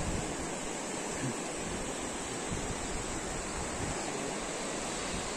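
Steady rush of a shallow river flowing over a wide stony bed, with wind buffeting the microphone.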